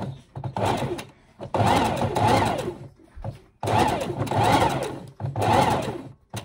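Electric domestic sewing machine running in several short bursts with brief pauses between them, its motor winding down at the end of each burst, as the stitching is guided bit by bit around a curved seam.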